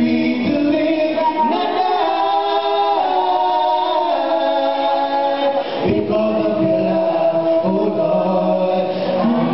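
A male duet and choir singing a gospel song in harmony, with long held notes and a short break about six seconds in.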